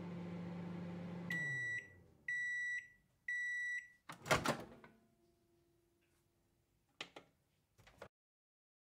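Microwave oven finishing its cycle: its low running hum winds down and three beeps sound about a second apart, signalling that it is done. A loud clunk follows, then two faint clicks near the end.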